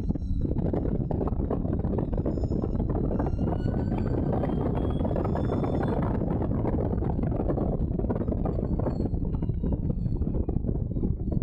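Allard J2's V8 engine running hard at racing speed, heard from the open cockpit with heavy wind noise; its pitch rises over the first half as the car accelerates.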